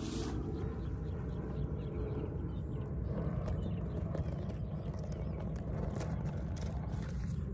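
Steady low rumble of wind on the microphone, with a few faint clicks and rustles of dry grass close to it.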